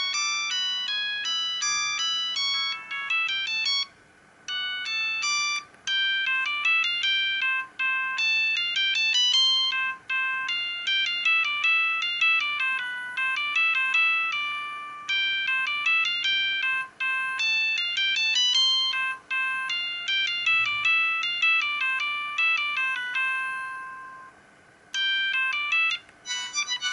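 Siemens CL50 mobile phone playing one of its built-in ringtones through its loudspeaker: a fast, repeating melody of short electronic notes. The tune breaks off briefly about four seconds in and again a couple of seconds before the end, then starts over.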